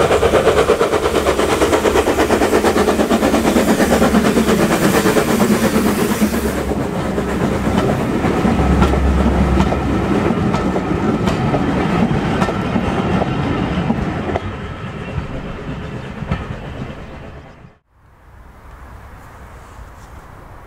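Saddle-tank steam locomotive and its short train of wooden coaches passing close by, loud at first, then the coaches rolling over the rail joints with a rapid clickety-clack that slowly fades. A sudden cut near the end leaves a much quieter outdoor background.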